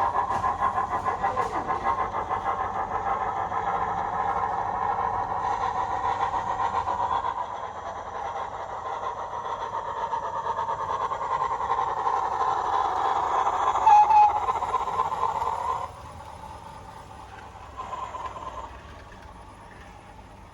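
Sound decoder in an OO gauge Heljan Beyer-Garratt model playing steam locomotive sounds through its small speaker: fast exhaust beats while the loco runs. A brief loud tone comes near the end of the running, then the sound drops much quieter about three-quarters of the way through.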